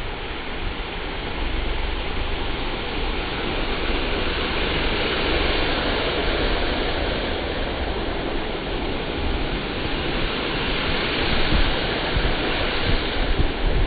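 Steady rain falling, with a low rumble of traffic underneath.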